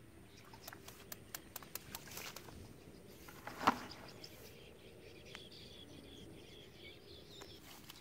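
Small fish and water being shaken out of a bamboo box trap into a plastic bucket: a quick run of sharp taps and clicks, then one louder knock a little before the middle.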